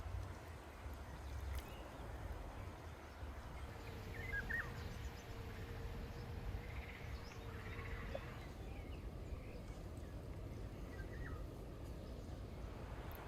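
Faint outdoor ambience: a low wind rumble with a few brief bird chirps, and a faint steady hum for a few seconds in the middle.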